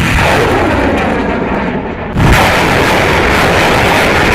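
Rocket launch: a loud, continuous rushing roar of rocket exhaust that gets suddenly louder about two seconds in.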